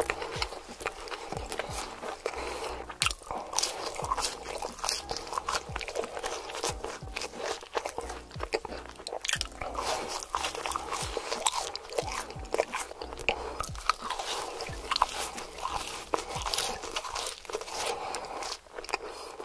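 Close-miked ASMR mukbang eating: crisp bites and crunchy chewing of McDonald's fried food such as chicken nuggets, with many sharp irregular crunches throughout.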